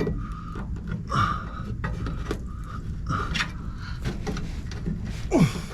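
Scraping and clicking of a trailer light being pried out of its mounting, with a man's strained breaths and a falling grunt of effort near the end.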